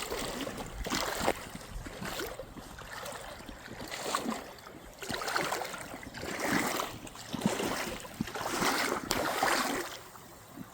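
Shallow creek water sloshing and splashing in repeated surges, roughly one a second, like someone moving through the water.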